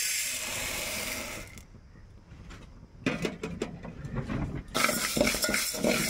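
Split moong dal poured into a dry metal pot: a rushing hiss of falling grains for about a second and a half. From about three seconds in, the lentils rattle and scrape as a metal spoon stirs them to dry-roast.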